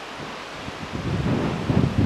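Wind buffeting the camcorder microphone: irregular low rumbling gusts that build from about half a second in, over a steady hiss.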